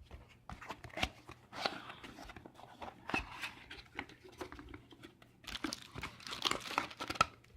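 A small retail box for a USB Type-C to Ethernet adapter being opened by hand: irregular rustling, crinkling and light clicks of the packaging being handled and pulled apart.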